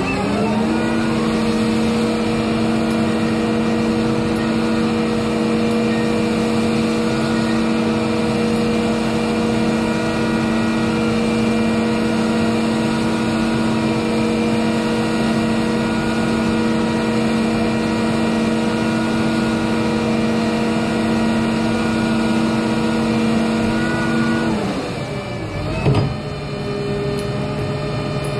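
Self-propelled gantry crane's hoist drive running up to speed, holding one steady pitch while the lifting frame is lowered on its cables, then winding down. Near the end there is a single clunk, and after it a lower, steady hum.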